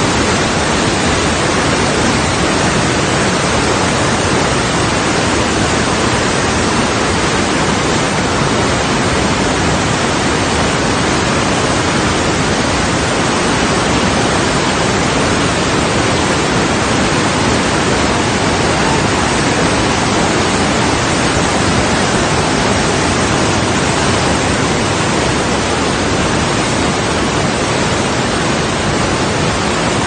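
Waterfall in full spate, heavy white water rushing over rocks in a loud, even, unbroken rush.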